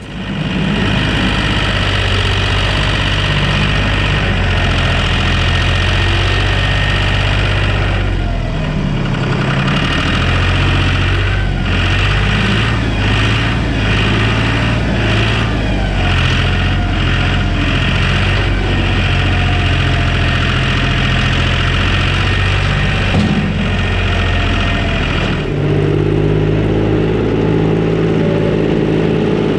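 John Deere tractor engine running under work, its pitch and load shifting a few times as the barn floor is scraped, with some clunks partway through.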